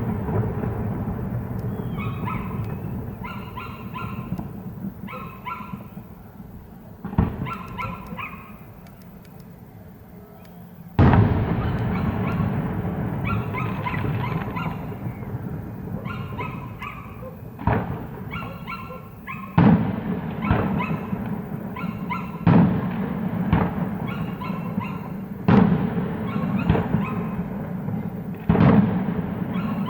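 Fireworks shells bursting overhead: about seven sharp booms a few seconds apart, each trailing off into a rumbling echo, with a low continuous rumble between them. The loudest boom comes about eleven seconds in, after a quieter lull.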